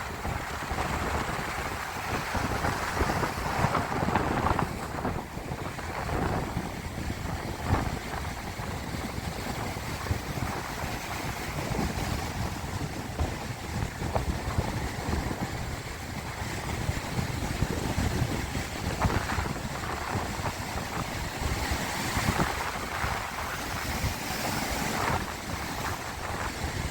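Sea waves washing, with wind buffeting the microphone in irregular low gusts.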